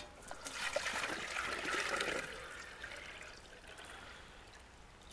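Water being poured from a metal bush pot into an enamel teapot, splashing and trickling. It is strongest in the first couple of seconds, then thins to a fading trickle.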